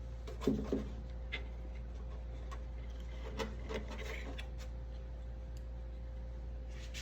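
A few light clicks and taps of hand work with small metal parts and tools, clustered about half a second in and again about three and a half seconds in, over a steady low electrical hum.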